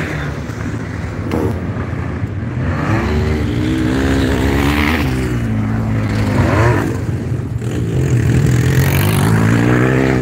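Several motocross sidecar outfits' engines revving hard on the track, the pitch climbing and dropping again and again as the engines rev up and drop between gears.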